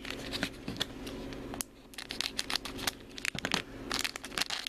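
A collectible eraser blind pack being crinkled and torn open by hand: a run of quick, sharp crackles and rips, with a short lull about one and a half seconds in.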